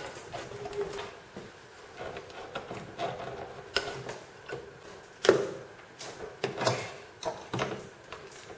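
Thin plywood side panels of a stitch-and-glue sea kayak being handled and flexed together, giving scattered light knocks, clicks and rubbing, with one louder knock about five seconds in.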